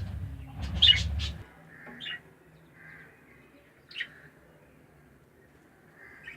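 Budgerigars chirping: a loud burst of sharp calls about a second in, then single short chirps every couple of seconds. A low rumble underneath stops about a second and a half in.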